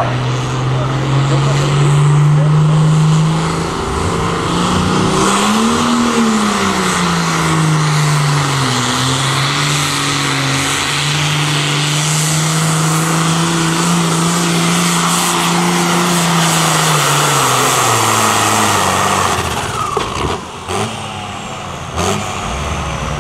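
Diesel engine of a modified International pulling tractor at full throttle, dragging a weight-transfer sled. The engine pitch climbs and dips about six seconds in, holds steady and high for most of the pull, then falls away near the end as the tractor stops.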